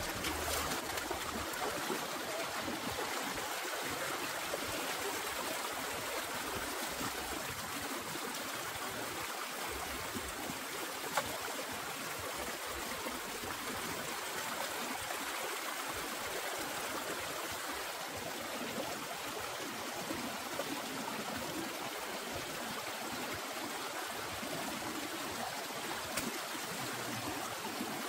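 Shallow rocky stream running and trickling over stones, a steady even rush of water, with one brief knock about eleven seconds in.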